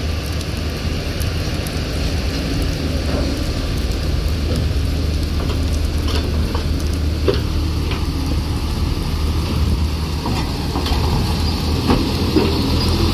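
Intercity bus's diesel engine running with a steady low hum as the bus pulls slowly past at close range, over the hiss of heavy rain.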